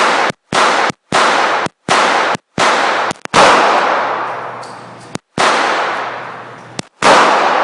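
Semi-automatic pistol shots fired in a string, about eight loud bangs at uneven intervals, some close together and some with a longer ringing tail; the recording cuts out briefly between shots.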